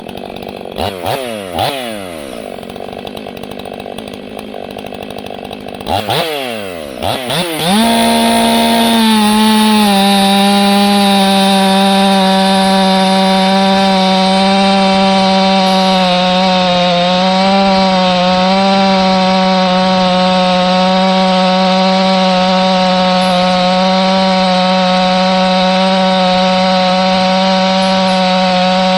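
Ported Stihl 500i fuel-injected chainsaw revved up and down twice, then held at full throttle from about eight seconds in with a steady pitch. The pitch sags a little partway through as the saw is loaded in the cut.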